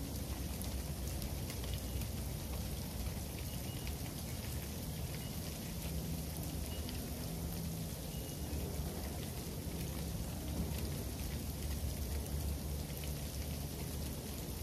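Freezing rain falling steadily on pavement and patio furniture: a dense, even pattering of drops over a steady low rumble.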